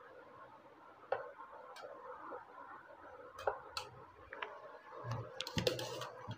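Faint, scattered clicks and taps of a metal palette knife against a steel bowl while whipped cream is scooped out, coming quicker near the end.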